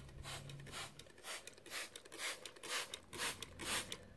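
Hand trigger spray bottle misting water onto model railway ballast: a quick run of short hisses, several a second, one with each squeeze of the trigger.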